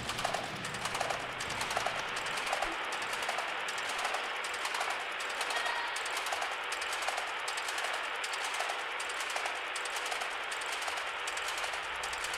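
Roller shutter being wound open with a hand crank: a steady clatter of the slats rolling up, with a regular click from the crank mechanism about every two-thirds of a second.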